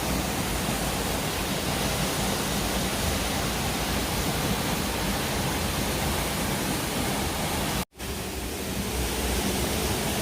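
Steady rush of a nearby waterfall, Ponytail Falls, an even roar of falling water that cuts out for an instant about eight seconds in.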